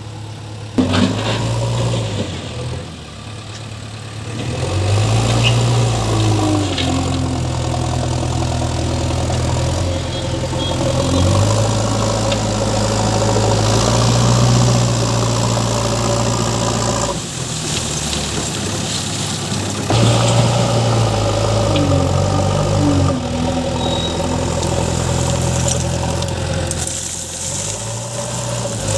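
JCB 3DX backhoe loader's diesel engine running, its pitch rising and falling several times as it revs up and settles back. There is a sharp knock about a second in.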